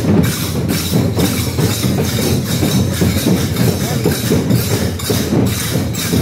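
Dammam drums beaten in a loud, steady, even rhythm.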